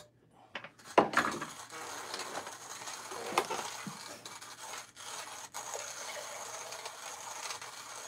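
Coffee grinder grinding beans: a sharp click about a second in, then a steady rasping crunch.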